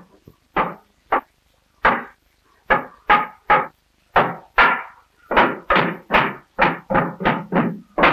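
A cooper's hammer striking again and again, driving iron hoops down over the oak staves of a barrel being raised. Sharp blows with a short ring, a few spaced out at first, then quickening to about three a second from the middle on.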